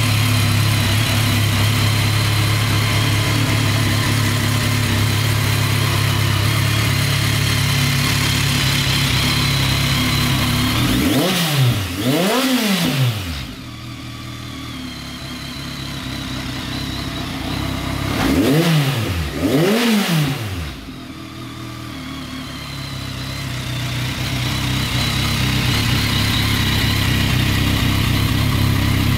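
BMW K1300S inline-four engine idling steadily through a GPR aftermarket silencer. The throttle is blipped twice in quick succession a little before halfway through and twice again about two-thirds through, each rev rising and falling back to idle.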